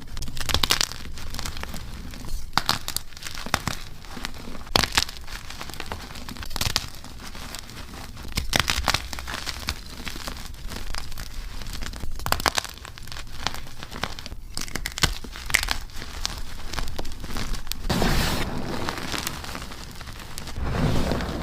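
Blocks of dyed and reformed gym chalk being crushed and crumbled, giving irregular crisp crunches and crackling snaps. About three-quarters of the way through, the sound turns into a denser, softer gritty crumbling.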